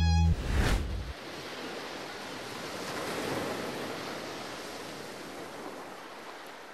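Sea surf washing on a shore: a steady rushing that swells about three seconds in and slowly fades.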